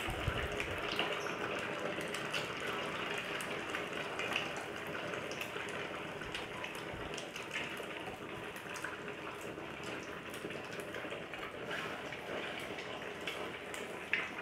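Egg-coated cilor balls on bamboo skewers deep-frying in oil over medium heat: a steady sizzle with scattered small crackles and pops.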